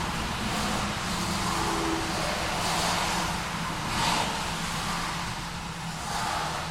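City street traffic: cars passing one after another, each a swell of tyre and engine hiss, over a steady low hum of engines.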